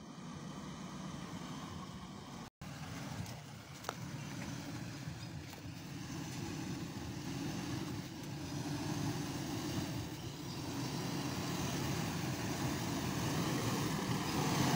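Toyota Fortuner SUV running as it drives over steep concrete steps, a low rumble that grows gradually louder as it comes closer. The sound cuts out for an instant about two and a half seconds in.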